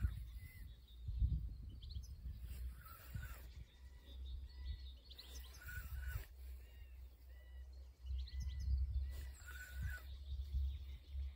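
Outdoor ambience: a low, uneven rumble of wind on the microphone, with small birds chirping briefly every second or two.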